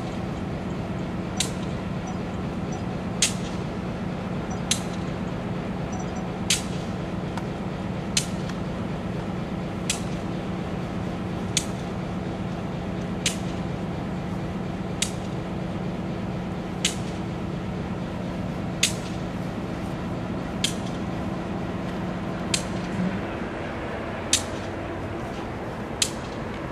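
EMD GP38 diesel locomotive idling: a steady engine hum with a held tone that changes and drops lower a little before the end. Over it, sharp single clicks come evenly about every second and three quarters.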